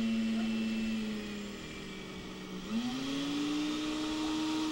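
Four-speed household blender motor running again after its worn carbon brushes were replaced. Its steady whine sags slightly, then steps up to a higher pitch a little over halfway through as it is switched to a higher speed.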